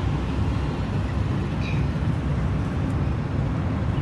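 Steady low rumble of street traffic, with no distinct clicks or tones from the machine.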